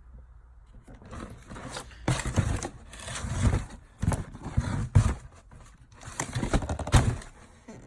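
Handling noise from a cardboard sneaker box and its wrapping being opened: irregular rustling and scraping with several dull thumps, loudest in the middle of the stretch.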